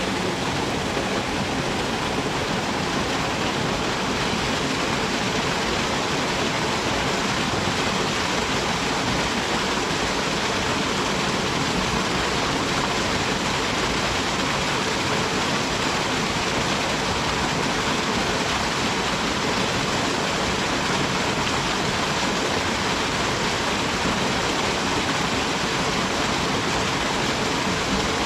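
Waterfall on a mountain stream pouring into its pool: a steady, unbroken rush of water, heard close to the water surface.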